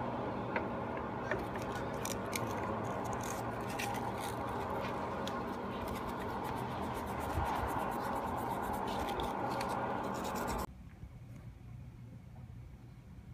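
A steady machine hum with scratching and clicking over it, cutting off suddenly about three-quarters of the way through, leaving only faint clicks.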